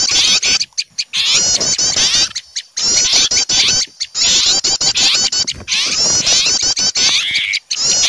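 A crowd of small songbirds alarm-calling and mobbing an owl: a dense, fast chatter of quick, repeated high chirps and chip notes from several birds at once, with a few brief lulls.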